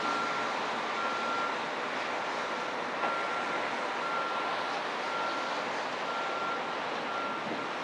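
A backup alarm on construction machinery beeping about once a second over steady engine noise, with one short knock about three seconds in.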